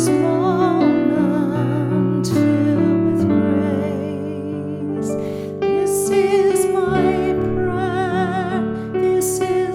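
Slow, gentle music: a voice singing long notes with vibrato over sustained accompanying chords.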